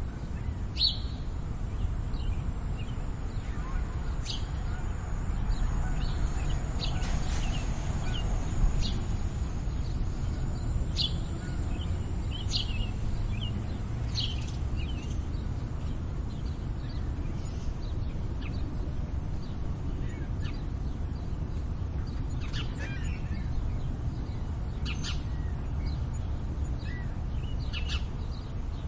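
Small songbirds, sparrows and finches, chirping in short, scattered calls over a steady low urban rumble. A faint thin high whine runs through the first half.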